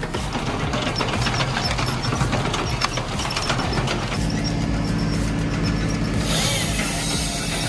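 Engine-driven machinery running: rapid clattering and knocking for about the first half, then a steady engine drone from about halfway.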